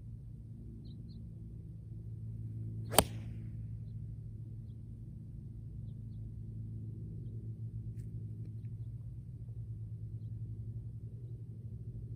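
A choked-up 7-iron strikes a golf ball on a tee shot: one sharp click about three seconds in. A steady low hum runs underneath.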